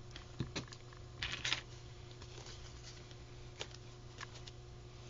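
Light handling noises from paper and lace on a craft table: a couple of soft clicks, a brief papery rustle about a second and a half in, then a few single ticks, over a steady low hum.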